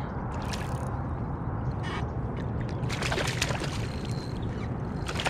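Water sloshing and splashing at the surface in short bursts, about half a second in, at two seconds, a cluster around three seconds and again near the end, over a steady low rumble.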